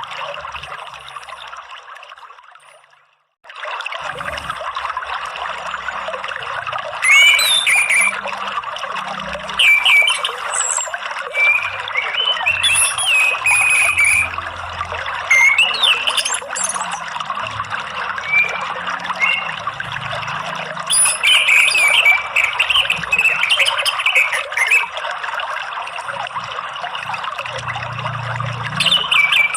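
Running water trickles steadily. It fades out over the first three seconds, goes briefly silent, and comes back abruptly. From about seven seconds in, an orange-headed thrush sings short, varied song phrases over the water, again and again.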